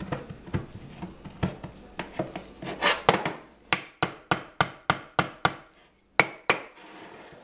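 A magnet-and-steel-block assembly being worked into place by hand: scraping and small clicks, then a quick run of about eight sharp knocks at roughly four a second, and two more a little later, as the block is struck to seat it.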